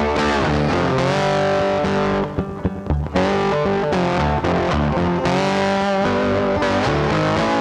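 Background music led by a distorted electric guitar over bass, with a short choppy break about two seconds in.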